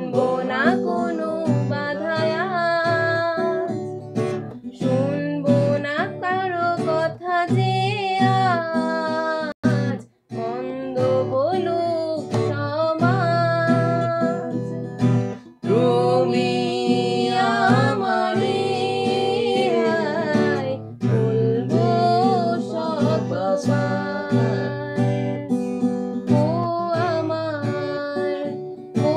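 Bengali romantic song: acoustic guitar strumming under a sung melody. The music cuts out for a moment about ten seconds in.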